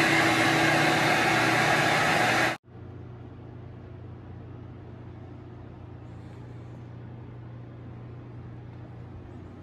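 Rotary carpet-cleaning extraction machine running with its vacuum hose, a loud steady rushing noise. It cuts off abruptly about two and a half seconds in, leaving a much quieter steady hum.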